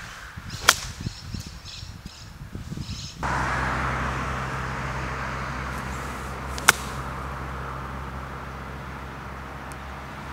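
Two golf chip shots with an iron, each a single sharp click of the clubface striking the ball, about six seconds apart. From about three seconds in, a steady low hum runs underneath and slowly fades.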